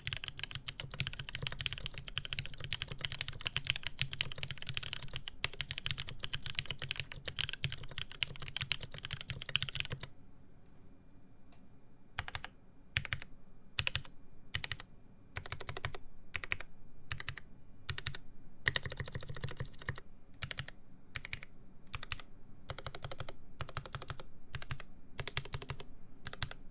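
Typing on a SINGA Jaguar mechanical keyboard with lubed Cherry MX Speed Silver linear switches, a polycarbonate plate and GMK Dolch keycaps. Fast, continuous keystrokes give way about ten seconds in to slower, separate key presses and short runs.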